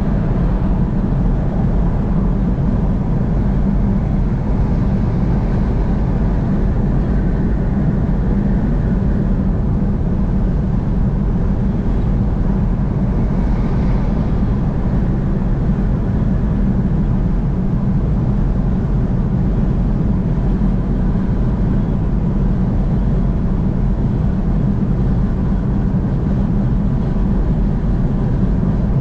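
A vehicle driving at speed on the interstate: steady road and engine noise, a constant low rumble.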